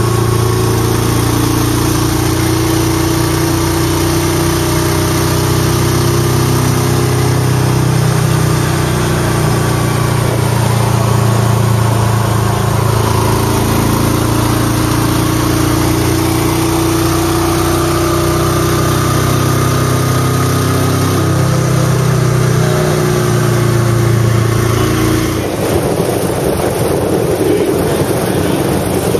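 Engine of a vehicle under way at a steady speed, heard from on board with heavy wind rush. About three-quarters of the way through, the engine hum drops away and the wind noise grows.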